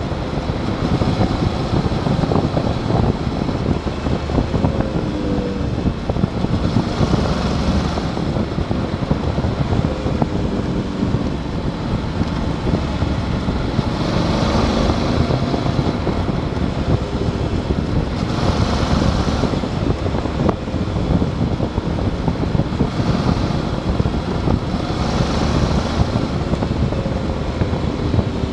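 Motorcycle engine running at road speed with heavy wind rush on the microphone; the engine note rises and falls with the throttle through the bends, and the wind hiss swells several times.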